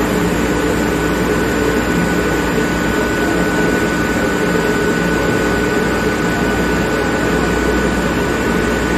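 Campbell Hausfeld 10 hp screw air compressor running: a steady, even machine drone with a thin constant whine over it.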